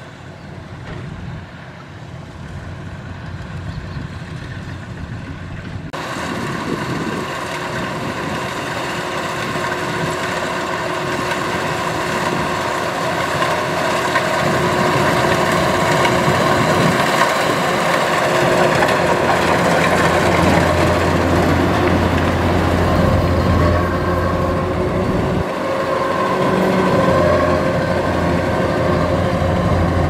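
Kubota DC-93 rice combine harvester's diesel engine and cutting machinery running steadily as it harvests, a constant hum that turns fuller and brighter abruptly about six seconds in and grows louder as the machine comes closer.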